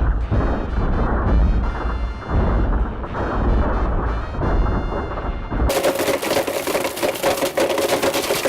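Music with a heavy bass beat. About six seconds in, it gives way to a Blendtec Total Blender running at high speed, a steady motor whine over dense crackling and crunching as two smartphones are ground up.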